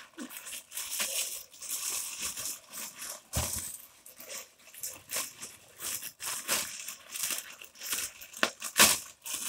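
A clear plastic bag holding a parcel crinkles and rustles in irregular bursts as it is handled and opened. Two sharper, louder sounds stand out, one about three and a half seconds in and the loudest near the end.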